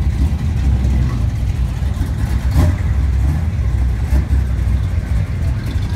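Classic cars' engines running at low speed close by, a steady deep drone, with a couple of brief clicks in the middle.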